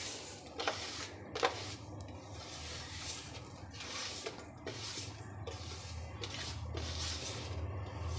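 Sesame seeds being swept by hand off a ceramic plate into a pan: repeated scraping swishes of fingers across the plate as the seeds slide and scatter, about one a second, with two sharp clicks about a second in. A low steady hum runs underneath.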